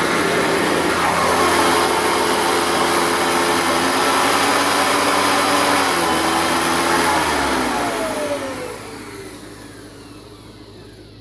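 Hoover Decade 800 upright vacuum running with its original brush roll, then switched off about eight seconds in, its motor whine falling as it spins down.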